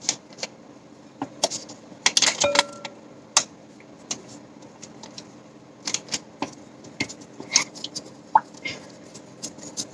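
Irregular light clicks and taps of a stirrer against a bowl as more slime powder is added to water and mixed in, with a brief scrape about two and a half seconds in.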